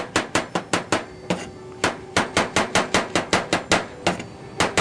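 Chef's knife slicing fresh mushrooms on a cutting board: quick, even knife taps at about five or six a second, in two runs broken by short pauses.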